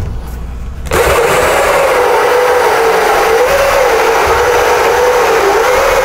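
Cordless drill spinning a 2-1/8 in. bi-metal hole saw through a hollow wooden door. It starts about a second in and runs steadily with a slightly wavering whine as the saw cuts.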